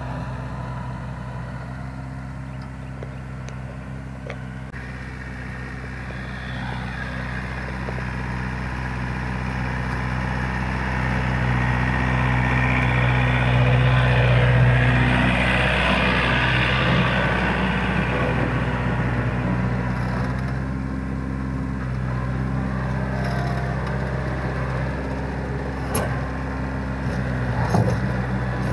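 Yanmar tractor's diesel engine running steadily while pulling a rotary tiller through the soil. The tractor grows louder as it passes close about halfway through, then falls back. A couple of short sharp knocks come near the end.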